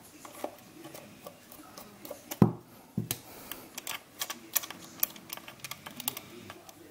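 Small plastic clicks and taps from handling the parts of an LGB model locomotive by hand, with one louder knock about two and a half seconds in and a quick, irregular run of clicks over the second half.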